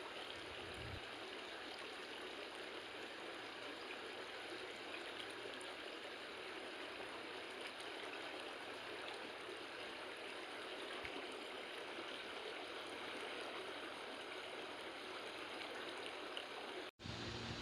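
A gorge stream's water flowing steadily, a faint, even rush. The sound cuts out for an instant near the end.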